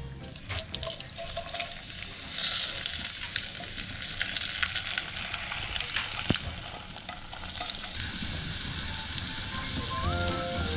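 Hot spice-infused oil poured through a mesh strainer onto ground chili pepper, sizzling as it hits the powder to make chili oil (rayu). The hiss strengthens about two seconds in, then carries on as the oil bubbles in the bowl.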